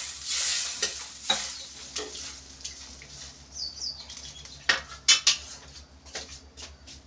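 A metal ladle stirring vegetables in water in a metal kadhai, clinking and scraping against the pan over a sizzling hiss that fades after the first second. There are a few sharp metal clinks about five seconds in.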